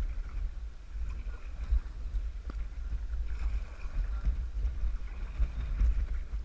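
Paddling a kayak on a river: wind buffeting the GoPro's microphone as a fluttering low rumble, with faint water splashes and light knocks from the paddling.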